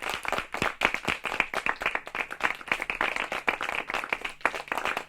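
Light, polite applause from a small audience in a small room: many hands clapping steadily, individual claps distinct.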